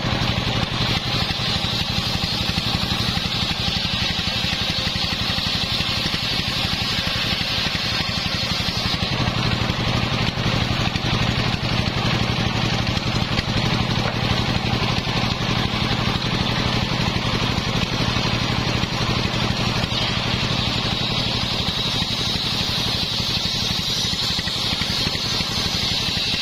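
Homemade belt-driven table circular saw ripping a sengon plank. Its drive motor hums steadily under the high hiss of the blade cutting the wood. The cutting noise eases for a stretch in the middle and comes back strongly near the end.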